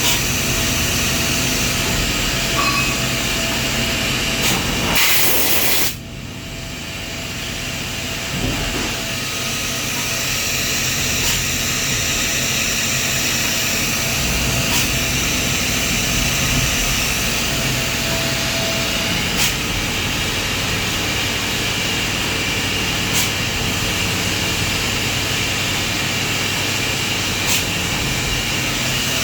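CNC milling machine running while engraving on its 4th (rotary) axis, a steady mechanical hum and hiss. About five seconds in there is a short loud hiss; the sound then drops and builds back up over a few seconds. A few sharp clicks come through now and then.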